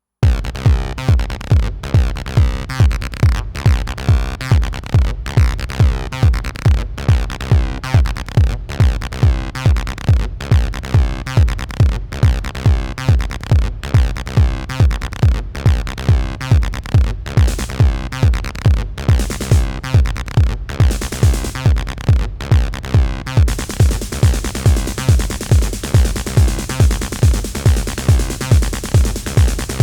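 Acid house groove from a Behringer RD-9 drum machine and a Behringer TD-3 bass synth: a steady kick at about two beats a second under a repeating synth bass line. It cuts in abruptly after a moment of silence, and about two-thirds of the way through a steady high hiss joins in.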